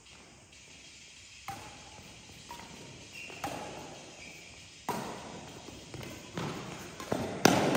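Badminton rackets striking a shuttlecock in a doubles rally: about six sharp smacks a second or two apart, coming faster and loudest near the end, each echoing in a large hall. Short squeaks of court shoes on the floor come between the hits.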